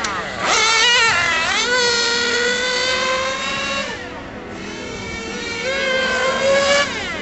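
Small two-stroke nitro engine of a Serpent 720 1:10 RC touring car screaming at high revs and coming off the throttle on track. It revs sharply up and down about a second in, holds a high whine, drops away briefly past the middle, then climbs again near the end.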